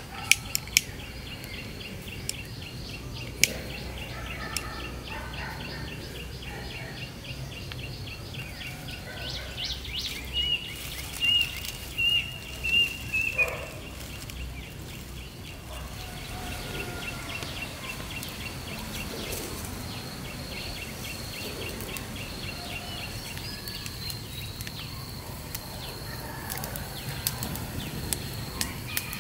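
Outdoor rural ambience: a steady high pulsing chirr with birds chirping, loudest for a few seconds around the middle, over a low rumble, with a few sharp clicks and light rustling of twigs and dry leaves near the fire.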